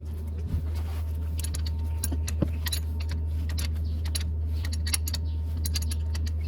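Isuzu Reward truck engine running steadily, with irregular light metallic clicks and ticks over it and no belt squeal to be heard.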